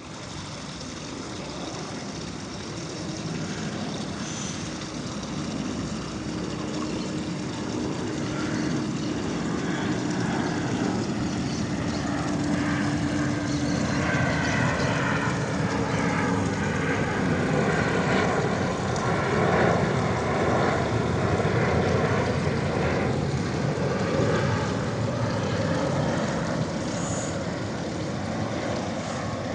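Airplane on approach to land, its engine noise swelling steadily louder as it comes nearer. A held tone fades out just past halfway, and falling whine tones come in around the middle of the pass.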